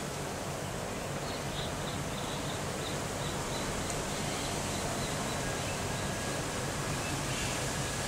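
Steady outdoor background hiss of wind and leaves. From about a second in until midway there is a faint run of short, high chirps, about three a second.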